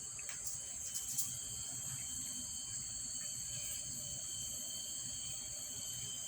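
Steady high-pitched whine made of several constant thin tones over a low rumble, with a few faint clicks about a second in.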